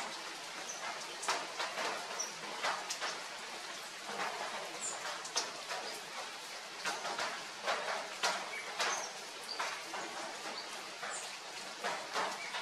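Steady rain falling on foliage, with frequent sharp ticks of heavier drops and a few brief, high bird chirps.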